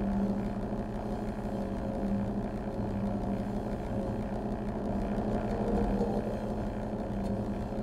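Steady low drone from live improvised electroacoustic music for wearable-sensor electronics and sound objects: a held hum over a rough, noisy bed, unchanging throughout.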